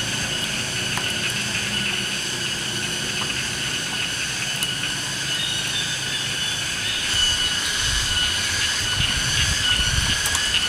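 Steady, high-pitched drone of a forest insect chorus, with some low rumbling in the last few seconds.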